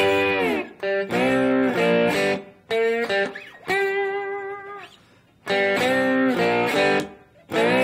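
Electric guitar in open G tuning played with a glass slide: a blues riff on more than one string, with notes gliding down and up in pitch. It comes in short phrases, with a brief pause about five seconds in.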